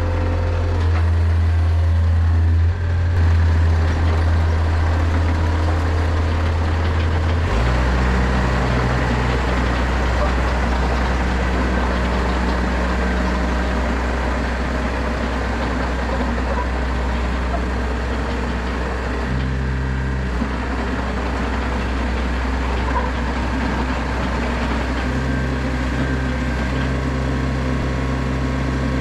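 Yanmar mini excavator's diesel engine running steadily under hydraulic load as the machine is driven on its tracks in a tracking test; the engine note changes about seven seconds in.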